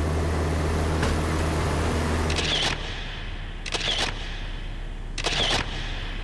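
Steady drone of the light aircraft's engine that drops away about two and a half seconds in. Then a camera shutter fires three times, about a second and a half apart, each time a quick cluster of clicks with a short whir of the film winding on.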